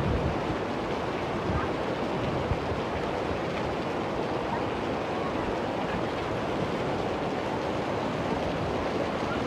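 A muddy flash-flood torrent rushing down a swollen river: a steady, dense rushing of fast floodwater, with heavy rain falling.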